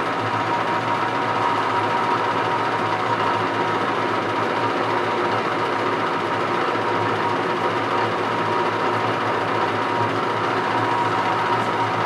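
Small electric motor of a workshop machine tool running steadily, with an even high whine over a low hum.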